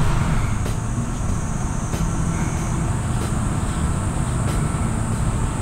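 Steady wind rumbling on the microphone, in a light headwind on the open fairway, with a faint steady high-pitched hiss above it.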